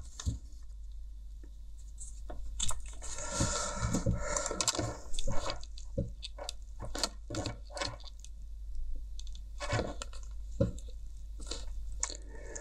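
Handling noise from a pair of plastic Bluetooth headphones: the headband and earcups rubbing, scraping and clicking as they are turned over in the hands, with a denser stretch of scraping about three seconds in.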